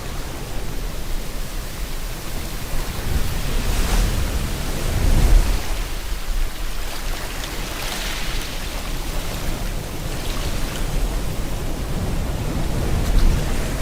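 Steady rain hiss mixed with ocean waves breaking and washing in, swelling about every few seconds, with deeper rumbling surges about five seconds in and again near the end.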